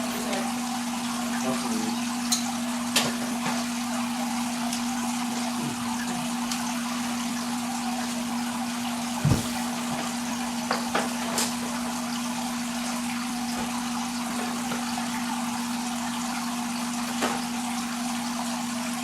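Steady rush of circulating water from a saltwater reef aquarium, with a constant low hum under it and a few scattered light clicks and knocks.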